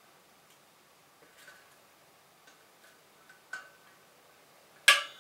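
Faint small metal clicks as an E-ring is worked onto the notch of a telescope mount's tension rod, then one sharp, loud click near the end as the ring snaps into place.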